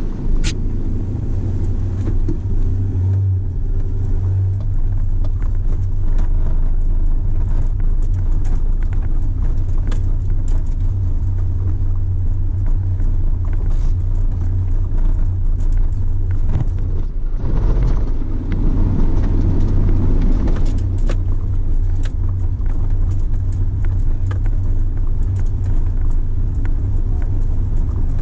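A vehicle driving slowly over a rough dirt track, heard from inside the cabin: a steady low engine and tyre rumble with frequent small rattles and knocks from the body on the bumps.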